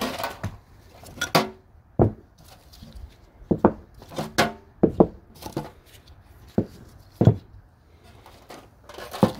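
Parts being unpacked and handled: a series of sharp clacks and knocks as steel parking brake shoes are set down one by one on a plywood workbench and against each other, with rustling of a cardboard box.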